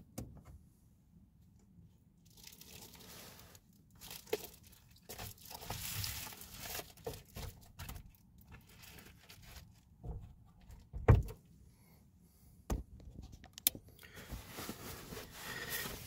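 Rustling and crinkling handling noise with scattered clicks inside a small van, and one dull, low thump about eleven seconds in.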